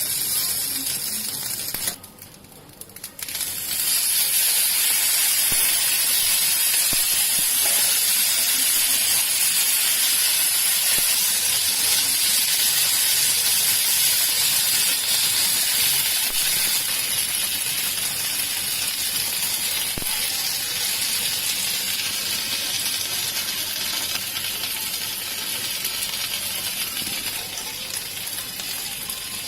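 Hot sizzler platter sizzling: a loud, steady hiss that breaks off briefly about two seconds in, then resumes and slowly dies down.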